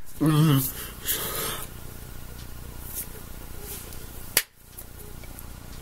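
Hand and sleeve noises from a person signing in ASL: light slaps, taps and rubs of the hands against each other and the body. A short wavering vocal hum comes near the start, and a sharp click about four and a half seconds in.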